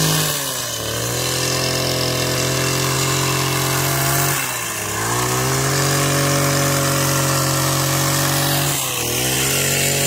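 Petrol-engined hedge trimmer running at high speed while cutting back a tree, its engine note dropping briefly and picking up again about half a second in, just before five seconds and near nine seconds as the throttle is eased and reopened.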